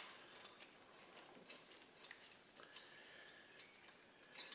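Faint scraping and light ticks of a drill bit's shank twisted by hand in a head bolt hole of a Model T Ford cast-iron engine block, breaking up the black, oily carbon packed in the bottom of the hole.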